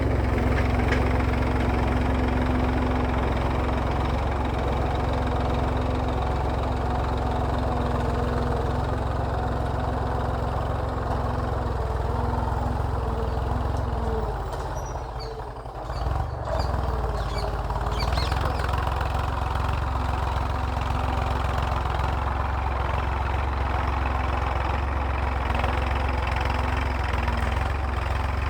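Massey Ferguson tractor's diesel engine running steadily while ploughing. The sound dips for about two seconds a little past halfway, then picks back up.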